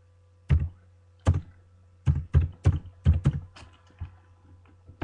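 Typing on a computer keyboard: about a dozen separate key presses at an irregular pace, some in quick pairs, loud and close.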